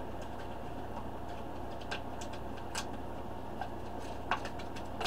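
A spinnerbait being taken out of its retail pack by hand: a handful of scattered, light clicks and crackles of packaging being worked open, the sharpest a little past four seconds in, over a steady low hum.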